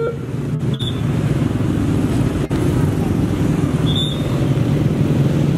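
Road traffic waiting at a railway level crossing: a steady rumble of motorcycle and car engines, with two short high chirps.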